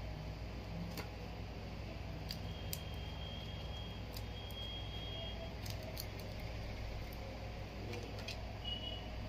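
Faint clicks and taps from a smartphone being handled while its clear plastic screen protector is peeled off, over a steady low hum.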